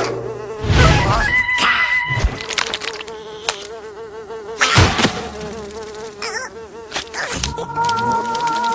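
Cartoon sound effects: a wavering insect-like buzz, like a fly's, runs through most of it, broken by a few sharp hits.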